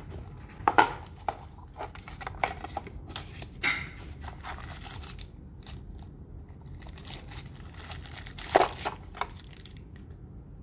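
Unboxing a smartphone: the cardboard box lid is lifted off and a plastic-wrapped wall charger is handled, with crinkling plastic among short sharp taps and clicks. The loudest knocks come just under a second in and again near the end.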